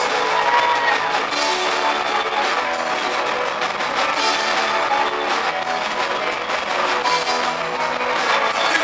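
Live rock band playing an instrumental passage: electric guitar, electric bass and drum kit, at a steady, even loudness.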